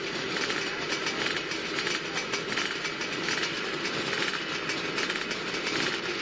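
A full gate of two-stroke motocross bikes running together at the start line, a dense, steady engine noise as the riders wait for the gate to drop.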